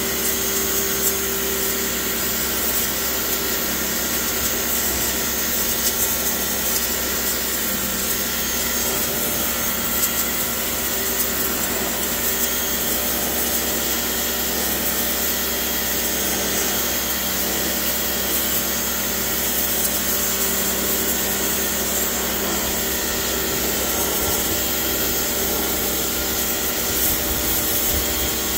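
Electric pressure washer running steadily, its motor and pump noise mixed with the hiss of the high-pressure jet spraying across wooden deck boards.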